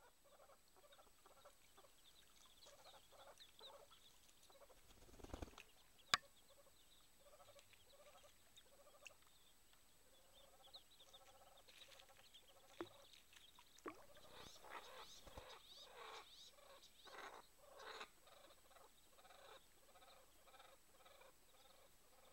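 Pateke (brown teal) ducks and ducklings giving many short, faint calls in quick runs, busiest in the second half. A single sharp click about six seconds in is the loudest sound.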